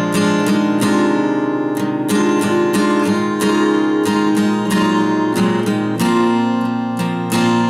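Solo acoustic guitar playing an improvised instrumental: picked and strummed chords in a steady stream of notes, several attacks a second.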